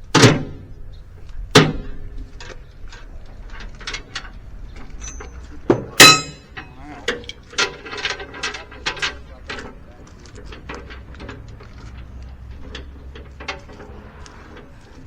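Clanks and knocks: two loud strikes near the start and about a second and a half in, then a ringing metallic clang about six seconds in, followed by many lighter clicks and rattles.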